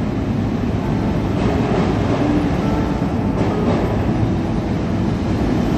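Heavy trucks rolling over the steel ferry loading ramp, a steady low rumble.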